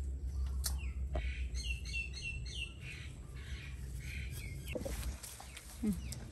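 A bird chirping: a quick run of about four high notes about a second and a half in, then a few more scattered chirps, over a steady low rumble.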